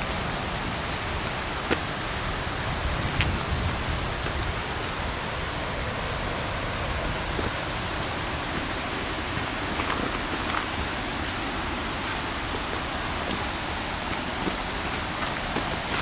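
Steady, even rushing noise with a few faint, scattered footsteps of a hiker walking a dirt forest trail.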